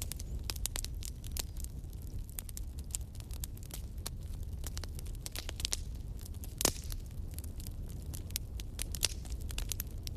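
Fire crackling in a fireplace: many small irregular pops over a low steady rumble, with one louder pop about two-thirds of the way through.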